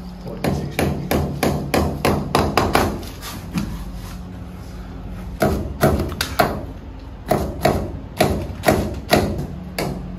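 Hammer tapping in quick runs of sharp strokes, about three a second: a run of eight or so strokes, a pause of about two seconds, then a longer run.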